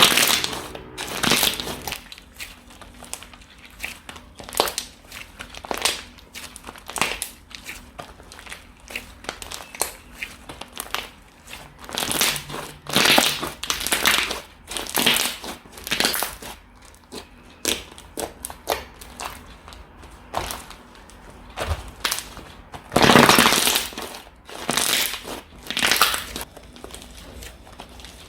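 Slime being squeezed and pressed by hand, giving irregular crackling, crunching pops. There are louder bursts about halfway through and again near the end.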